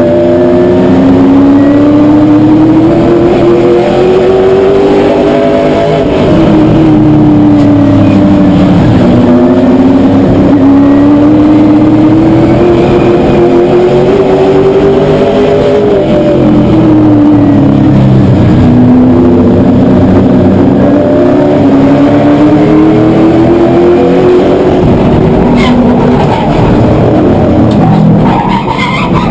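Late model stock car's V8 racing engine heard from inside the cockpit, at full throttle lap after lap. The pitch climbs steadily along each straight and falls as the driver lifts for the turns, repeating about every eight seconds.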